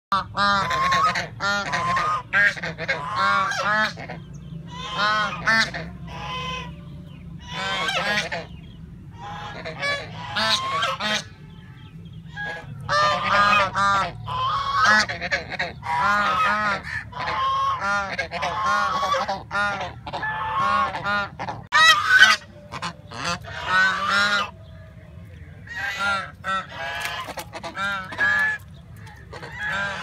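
White domestic geese honking together, in quick bouts of repeated loud calls with short pauses between the bouts.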